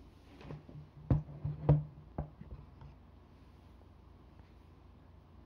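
A few soft taps and clicks in a quiet room, about one and two seconds in, over a faint low hum that fades out about three seconds in.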